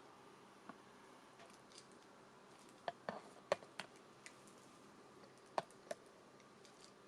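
A few sharp, irregular clicks and taps over a faint quiet background, bunched in the middle and again a little before the end.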